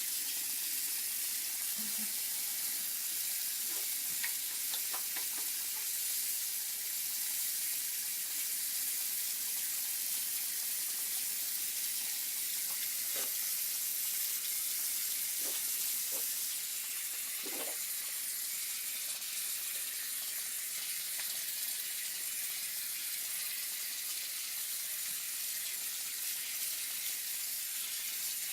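Water tap running steadily into a sink while hands are washed under the stream, a constant hiss of water with a few faint small knocks.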